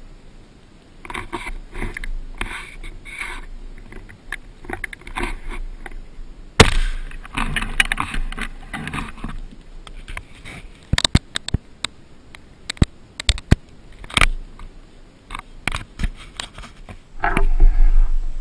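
Brush rustling and twigs cracking under a hunter's footsteps in dry scrub, with scattered sharp snaps, and one sudden loud bang about a third of the way through.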